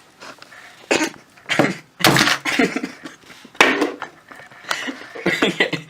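Irregular clattering and knocking of hard objects being handled and worked on, with about half a dozen sharp knocks spread unevenly.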